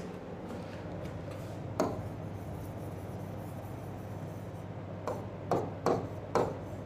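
Pen tapping and rubbing on the glass screen of an interactive display board while words are written: one short tap about two seconds in and a quick run of taps near the end, over a steady low electrical hum.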